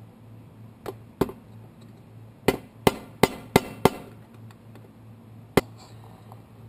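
Sharp knocks on the lock hardware as the parts are knocked or tapped into place during reassembly. There are two knocks, then a quick run of five at about three a second, then one more.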